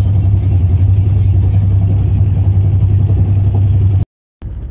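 Passenger train running at speed, heard from inside the coach: a steady loud low rumble. The sound drops out for a moment about four seconds in, then carries on a little quieter.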